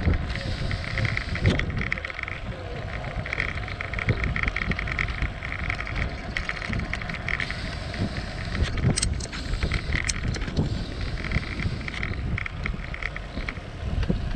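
Bicycle rolling along a paved lane, with a steady rumble of tyres and wind buffeting the GoPro microphone. A rapid high ticking comes and goes in short spells, and there are a couple of sharp clicks near the middle.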